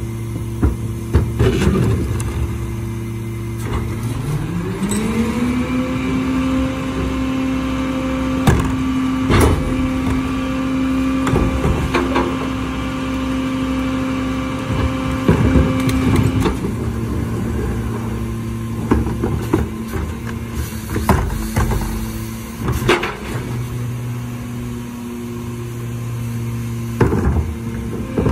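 Mack LR garbage truck's engine idling, then speeding up about four seconds in to a steady higher idle. It holds there for about twelve seconds, the typical sound of the Leach Alpha III rear loader's hydraulic packer running, then drops back to idle. Carts and their lids bang against the rear hopper in sharp knocks as they are tipped in by hand.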